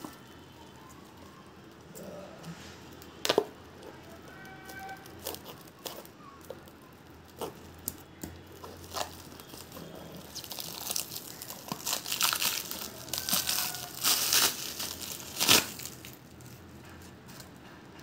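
Clear plastic stretch wrap being peeled and torn off a coiled Cat6 Ethernet cable: scattered crinkles and sharp snaps, growing into dense, loud crinkling in the second half.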